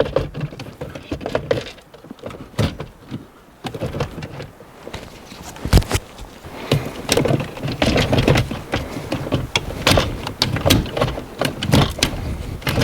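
Irregular clicks, knocks and rattles of plastic shifter-console parts and a wiring connector being handled and fitted by hand, with one sharp click about six seconds in.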